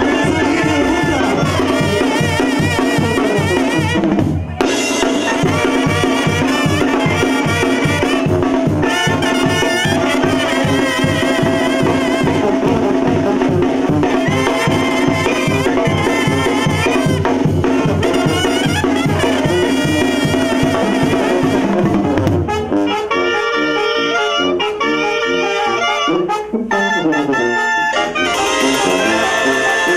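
Live Mexican banda music: clarinets, trumpets and trombones with a sousaphone bass line, over tambora bass drum, snare and cymbal, playing a fast steady beat. About three-quarters of the way through, the bass and drums drop out, leaving the clarinets and brass on their own. The full band comes back in near the end.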